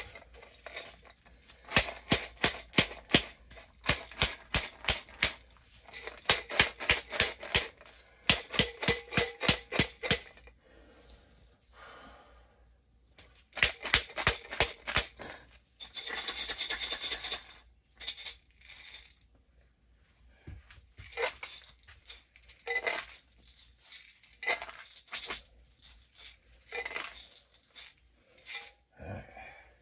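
Grain spawn rattling inside a glass mason jar shaken hard by hand, in bursts of rapid clicks about four a second with short pauses between. This is a shake and break: knocking apart partly colonized mushroom grain to spread the mycelium through the jar.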